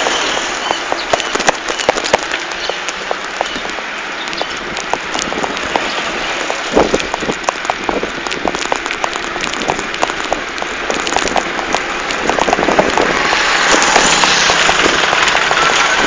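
Mountain bike rolling along a paved road, heard from a camera riding on the bike: a steady rustling hiss thick with small clicks and rattles, growing louder near the end.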